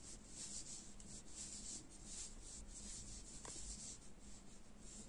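Faint soft rubbing of yarn against a crochet hook and fingers as shell stitches are worked: short, uneven swishes, about three a second.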